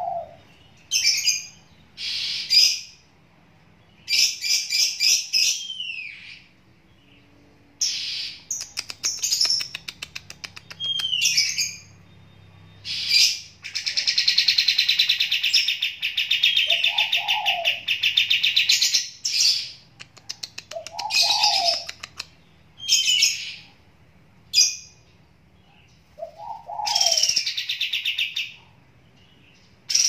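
Caged kapas tembak bulbul singing in short, loud phrases of high sweeping whistles every second or two, with a longer unbroken burst of song around the middle. A lower, shorter call sounds a few times in the gaps.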